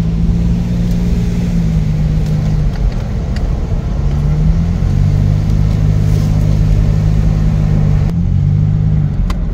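Car engine and road noise heard from inside the cabin while driving: a steady low drone that drops and rises in pitch a few times as the car slows and speeds up.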